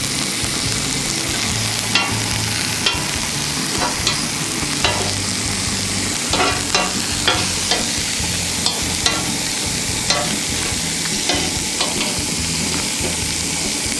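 Shell-on shrimp and scampi sizzling steadily on a hot gas grill, with scattered sharp clicks of metal tongs as they are turned.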